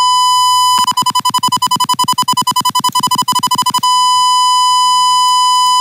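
Steady 1 kHz sine test tone from a simulated LM386 audio amplifier played through the computer speaker. About a second in, while the volume potentiometer is being dragged, it breaks into rapid choppy pulses, about ten a second. After about three seconds the pulses stop and the tone is steady again.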